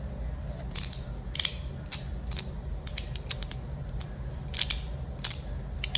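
Resin-printed magnetic fidget slider (the Verk) being slid back and forth by hand. Its plates click as the magnets snap them into position, in sharp, irregular clicks of about two or three a second.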